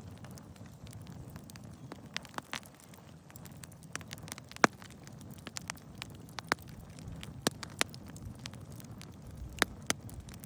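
Bonfire of gathered twigs and sticks crackling, with irregular sharp pops over a low steady rush.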